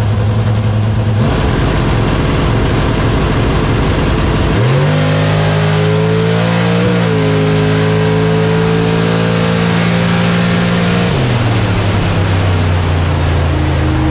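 Drag race car's engine heard from inside the cockpit, loud throughout. About four and a half seconds in it revs up sharply and holds at high revs for about six seconds, with a brief blip near the middle, then the revs drop back near the end.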